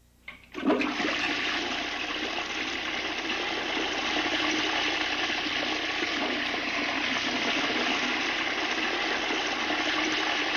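Toilet flushing: a short click, then water rushing in suddenly under a second in and running on steadily.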